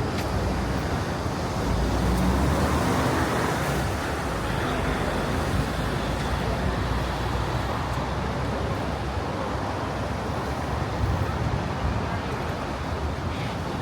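Street traffic noise: a steady roadway rumble, with a vehicle passing and the rumble swelling about two seconds in before easing off.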